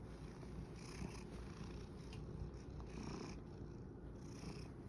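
Domestic cat purring close to the microphone, a steady low rumble that swells with each breath about every second and a half.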